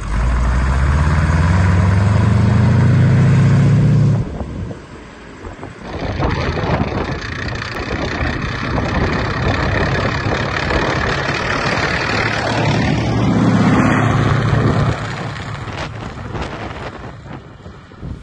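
Sexton self-propelled gun's Continental R-975 radial engine running as the tracked vehicle drives off, its pitch rising as it accelerates over the first few seconds. After a short dip it runs on steadily, then fades over the last few seconds as it moves away.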